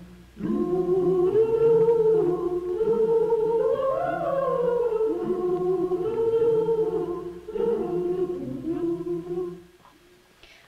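Unaccompanied voices singing a slow tune in harmony, with long held notes. There is a brief break about seven and a half seconds in, and the singing fades out about a second before the end.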